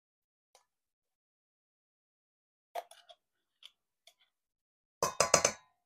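Mostly silence, with a few faint clicks in the middle, then a quick run of five or six sharp knocks near the end: a utensil knocking against the inside of a glass mustard jar while scraping the mustard out.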